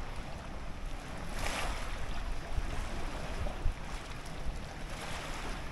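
Wind buffeting the microphone over water at the lake's edge: a steady noisy rumble, with a brief louder rush of hiss about a second and a half in and a single sharp knock past the middle.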